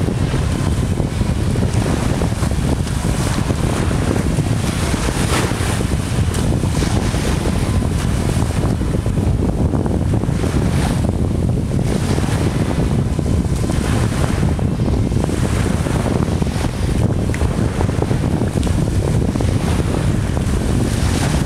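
Strong wind buffeting the microphone in a dense, steady low rumble, over the wash of choppy sea.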